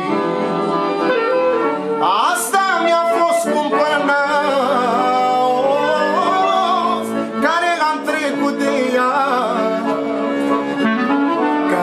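Weltmeister piano accordion playing an ornamented manele melody with quick runs. Over it, a man sings without words in wavering, bending lines.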